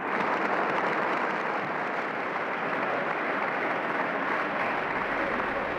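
Large audience applauding, a thick steady clapping that thins slightly near the end.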